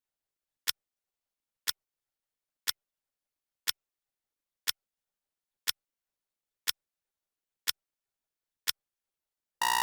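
Clock-ticking sound effect of a countdown timer, one sharp tick each second. Near the end an electronic alarm beep begins, signalling that the countdown has finished.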